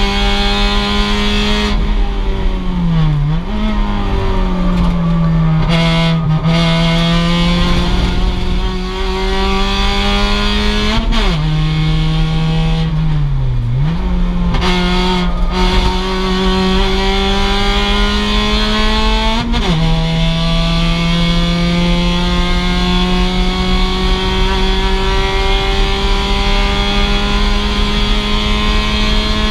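A 2006 Mazda MX-5's stock 2.0-litre four-cylinder engine running hard at race pace. It holds high revs for long stretches, with the pitch dropping and climbing back as it changes gear several times: around 3, 11, 13 and 19 seconds in.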